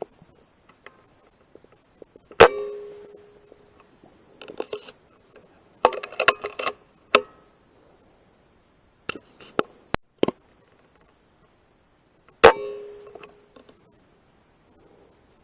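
Two rifle shots about ten seconds apart, each a sharp crack followed by a brief ringing tone that fades over about a second. Clusters of small clicks and knocks fall between them.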